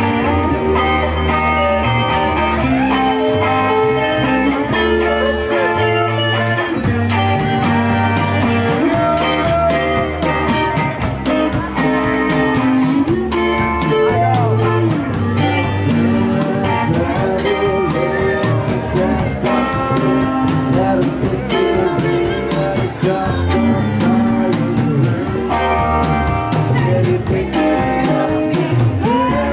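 Live rock band playing a song: electric guitars with a Telecaster-style lead, bass and a drum kit, with a sung lead vocal.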